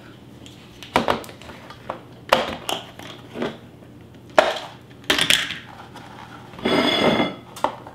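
Kitchenware being handled on a countertop: a ceramic plate and a small glass storage container set down and opened. Several separate clinks and knocks, with a longer rattling scrape near the end.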